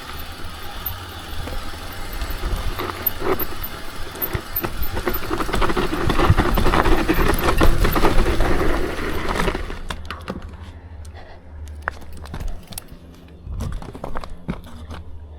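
Mountain bike riding down a dirt trail over roots: rushing tyre noise and rattling clicks and knocks from the bike, with wind rumble on the microphone. The rushing grows louder, then drops away abruptly about two-thirds through, leaving scattered clicks and knocks.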